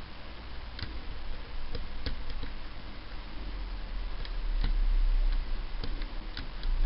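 Scattered small metallic clicks, about nine, irregularly spaced, as a lock pick works the telescopic pins of a Mul-T-Lock Basic euro-profile dimple cylinder under very light tension. The cylinder is stuck in a false set.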